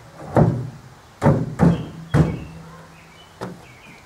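About four heavy knocks as a block of screwed-together lumber is set onto the metal crossbar of a pickup truck rack, with a low ringing from the metal after the last knock and one lighter knock later.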